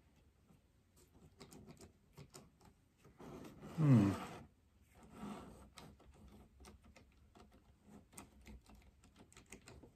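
Light clicks and taps of a Fleischmann N gauge BR 01 model locomotive being handled and pushed by hand along its track, its motor dead though the lights work. About four seconds in comes one brief, louder sound that falls in pitch.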